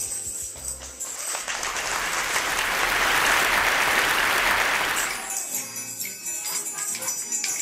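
Children's music with tambourine jingles and stick clicks breaks off about a second in. Audience applause swells and dies away over the next four seconds, and then jingling percussion and music start up again.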